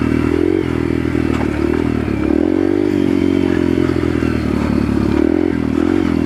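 Yamaha TTR125's single-cylinder four-stroke engine running under way, its pitch rising and falling in waves as the throttle is worked. The bike is held in first gear because its shift lever is bent in under the engine.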